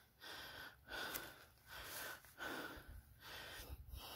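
A person breathing hard and fast, out of breath from a steep climb, with each breath coming about every three quarters of a second.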